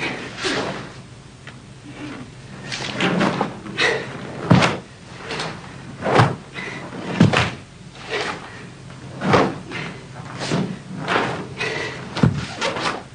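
Karate gi snapping and bare feet stamping and sliding on a wooden floor during a Goju-ryu kata's strikes and stances: a dozen or more sharp snaps and thumps at an irregular pace.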